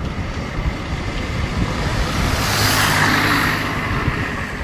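Distant rushing roar of an Airbus A380's jet engines as it flies over, with wind rumbling on the microphone. The roar swells to its loudest about two and a half to three seconds in, then eases.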